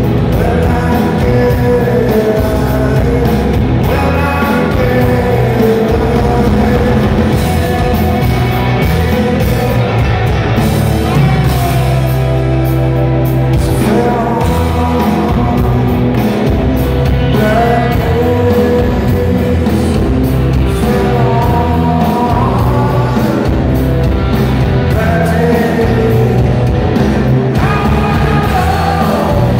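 Rock band playing live in a large hall, a lead singer's voice over the full band, loud and continuous.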